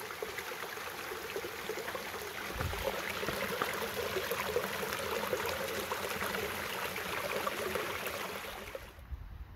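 Small mountain creek cascading down a rock slide and small waterfall: a steady rush of water. It drops away sharply near the end.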